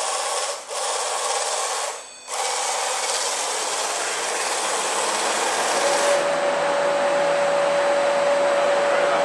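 Corded electric replica chainsaw running with no load, its chain spinning free. The motor drops out briefly twice in the first couple of seconds, then runs on steadily, with a steady whine coming in about six seconds in.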